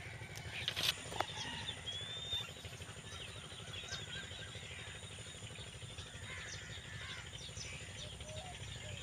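Birds chirping and calling over a steady low rumble, with two sharp snaps about a second in.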